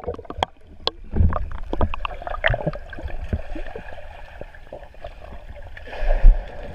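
Underwater sound of a swimming pool heard through a submerged action camera: muffled water movement with scattered bubbly pops and clicks. A loud low thump comes near the end.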